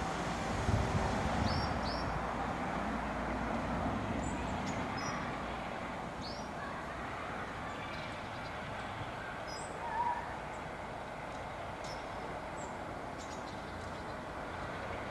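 Distant diesel locomotive, the Class 47 D1842, running steadily with a low rumble, while birds chirp in short calls now and then. A brief higher note sounds about ten seconds in.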